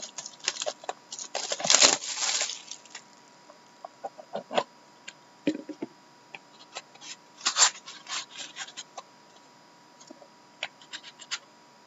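A sealed box of trading cards being opened and handled by hand: crackling and tearing packaging, with scattered clicks. The loudest tearing comes about two seconds in, and there is a shorter burst about halfway through.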